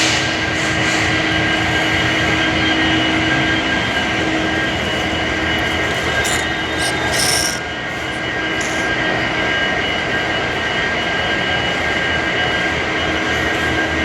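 Train running on the rails: a steady rumble with thin steady tones above it, and brief hissing bursts near the middle.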